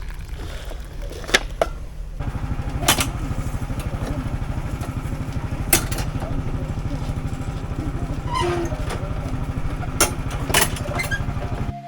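Tractor engine running steadily, growing louder about two seconds in, with a few sharp knocks and clatters over it.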